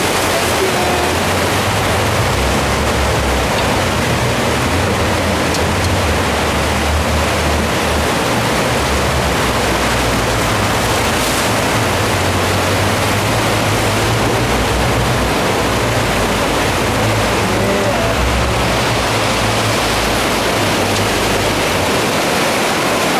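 Fast boat powering through churning tidal rapids: a loud, steady rush of water and wind, with the low drone of the boat's engines wavering underneath.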